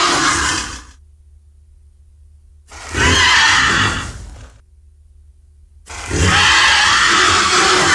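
Baby Tyrannosaurus rex sound effect: harsh, hissy, squealing creature calls. One call ends about a second in, a second about two seconds long comes near the middle, and a third starts about six seconds in and is still going.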